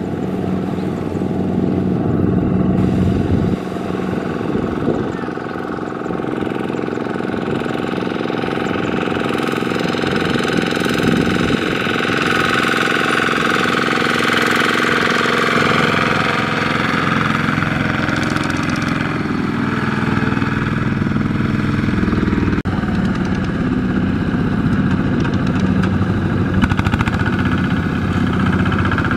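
Single-cylinder diesel engine of a Kubota RT120 walking-tractor power tiller, running steadily under load as it pulls a trailer loaded with rice sacks. Its pitch shifts slightly about two-thirds of the way in.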